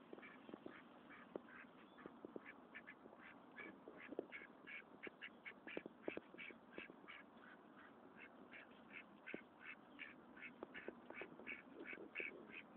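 Ducks giving a faint, steady run of short quacks, several a second, while pecking and rustling through dry leaves with small sharp clicks.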